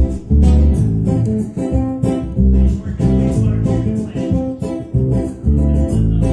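Background music: a guitar-led track.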